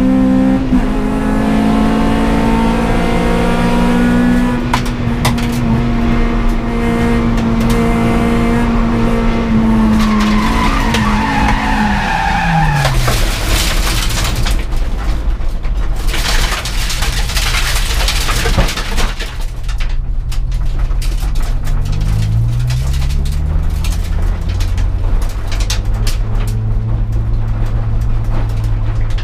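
Race car engine heard from inside the cabin, held at high revs for about twelve seconds, then the revs fall away as the car spins. Several seconds of tyre skidding and scrubbing noise follow. The engine then picks up with a short rising rev and settles into a low, steady running note.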